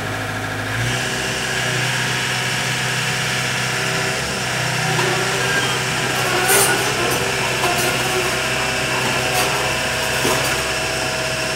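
Takeuchi compact excavator's diesel engine running steadily, its note shifting about a second in, with a few short knocks in the second half.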